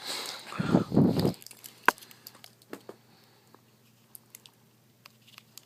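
Close handling noise of a Swiss Army pocket knife being turned over in the hand: a brief rustle and rubbing rumble about a second in, a sharp click just under two seconds in, then a few faint ticks.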